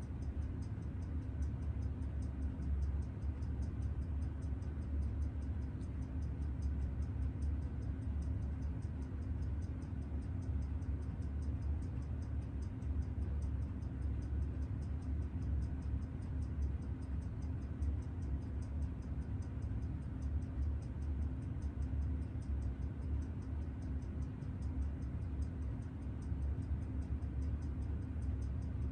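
Steady low electrical hum with a faint, fast, regular ticking above it.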